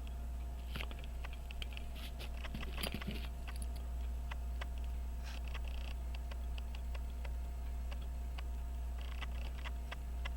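Irregular small metallic clicks and ticks of watchmaker's tweezers and screwdriver on a pocket watch movement while a plate screw is being set, with a denser flurry of clicks about three seconds in. A steady low electrical hum runs underneath.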